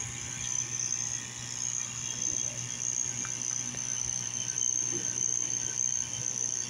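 Small 12-volt water pump running steadily with a low hum, circulating water through a homemade vortex fountain. A steady high-pitched whine sits over it.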